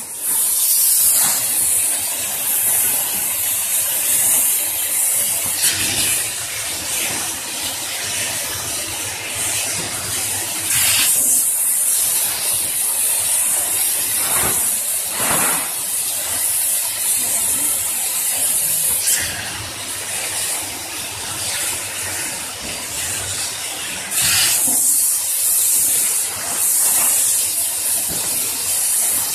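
Single-side tarpaulin welding machine running: its ring blower and welding heads give a steady high hiss, louder in stretches.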